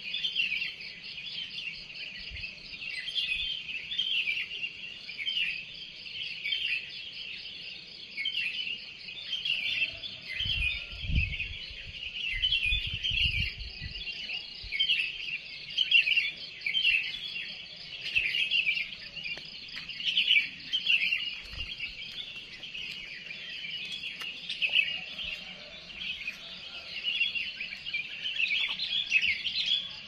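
Dawn chorus of many small birds chirping and twittering at once, dense and continuous. A brief low rumble on the microphone comes about ten to fourteen seconds in.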